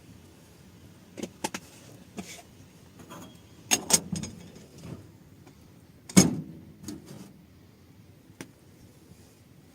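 Scattered knocks and clicks, irregular and in small clusters, the loudest a thump about six seconds in.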